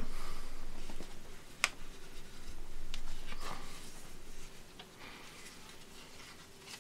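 A sheet of paper being folded into a paper airplane by hand: rustling and rubbing as the creases are pressed flat, with a few sharp crinkles, the loudest about a second and a half in.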